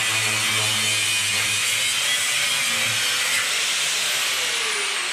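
Angle grinder cutting into a concrete stair, a loud steady grinding hiss. About four seconds in, its whine starts to fall in pitch as the disc winds down.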